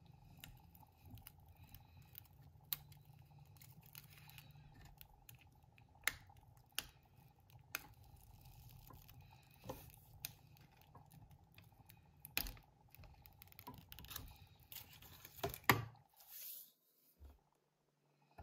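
Faint scattered clicks and crinkles of adhesive vinyl being picked and peeled from its backing sheet with a hook weeding tool, over a faint steady hum.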